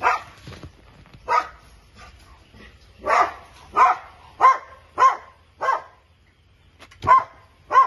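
Young kittens mewing: about nine short, separate cries, with a pause of about a second past the middle.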